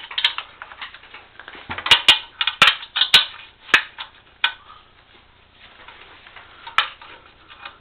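Tools clicking and clinking against metal while a seat bolt is worked loose, in a run of sharp knocks about two to four seconds in and a single one near the end, with faint scraping between.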